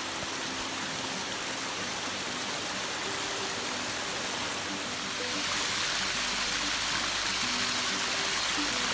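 Waterfall: a steady rush of falling water that gets louder and brighter about five seconds in. Faint background music notes play over it.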